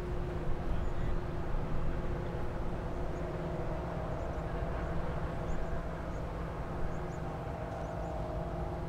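Steady low drone of ship and tugboat diesel engines, with a faint even hum above the rumble.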